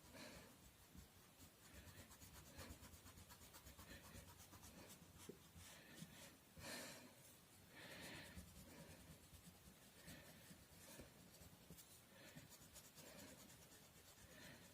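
Faint scratching of colour being shaded onto paper in light strokes, with a few slightly louder strokes.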